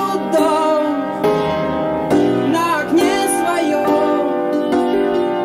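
Rock band recording with sustained keyboard chords that change every two to three seconds and a wavering lead melody above them.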